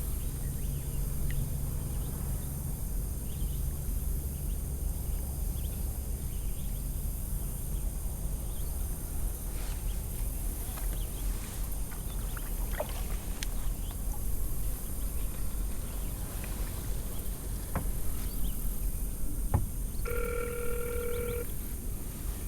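Mobile phone placing a call on speaker: one ringback tone about twenty seconds in, over a steady low rumble with a few faint clicks.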